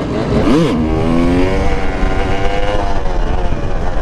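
Two-stroke dirt bike engine on supermoto wheels being ridden, its revs rising and falling with the throttle, with a quick sharp blip about half a second in.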